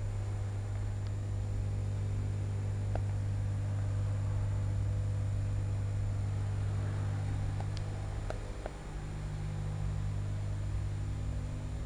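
A steady low hum, with a few faint clicks about three seconds in and again around eight seconds in.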